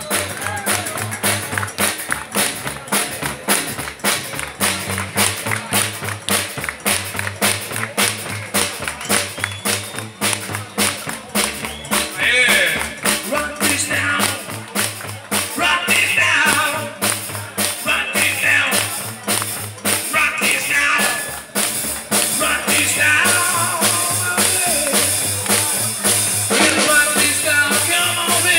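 Background music with a fast, steady drum beat over a repeating bass line. A melody comes in about halfway through.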